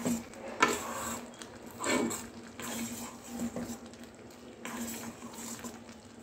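Steel spoon stirring and lifting soft, soupy moong dal khichdi in a stainless steel pan: wet squelching with a few light knocks of the spoon against the metal, the loudest about half a second and two seconds in.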